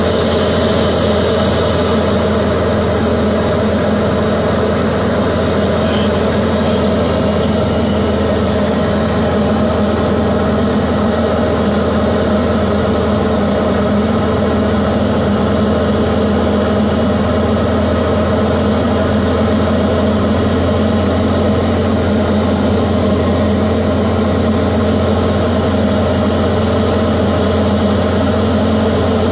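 Diamond DA40's four-cylinder Lycoming IO-360 engine and propeller droning steadily on final approach, heard from inside the cockpit.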